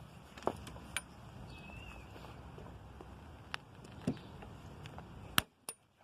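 Scattered light clicks and knocks, about six, from a push mower's new brake control cable and its clip being handled and wiggled on the handle bar, the sharpest near the end.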